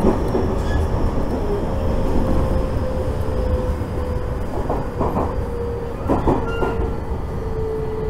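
Electric commuter train heard from inside the car as it slows into a station: a steady rumble of wheels on rail, with a thin motor tone slowly falling in pitch as it brakes. A few knocks from rail joints come about 5 and 6 seconds in.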